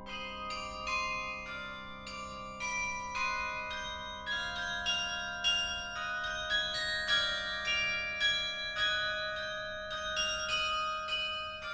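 The carillon of the Peter and Paul Fortress playing a piece of Russian music: a melody of struck bell notes, about two a second, each ringing on under the next.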